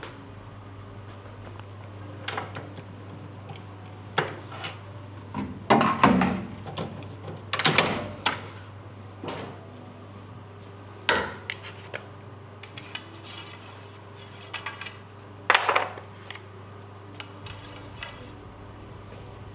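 Tools and wooden cue parts being handled on a workbench: scattered knocks and clinks at irregular intervals, the loudest around six to eight seconds in and again near sixteen seconds. A steady low hum runs underneath.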